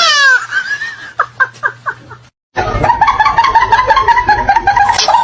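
Four short falling squeaks, then a brief cut to silence, then a run of quick, high-pitched laughter-like cackling.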